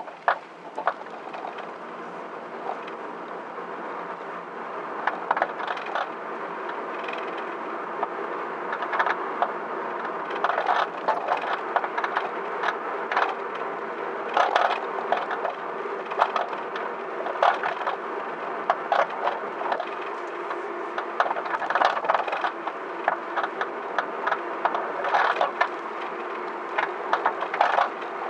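Coilover suspension making repeated irregular clicks, knocks and creaks over a steady background noise. The owner reports this abnormal noise began once the coilovers were set to their lowest height and did not stop after raising the car 1 cm.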